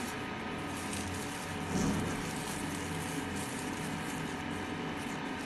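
Steady background hum and hiss with several constant tones, with one brief low bump about two seconds in.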